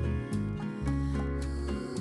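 Background music: sustained pitched notes and chords with a steady beat.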